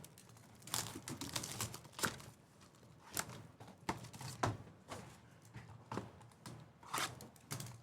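Packaging and trading cards being handled as a new box of baseball card packs is opened: irregular crinkling, tapping and clicking.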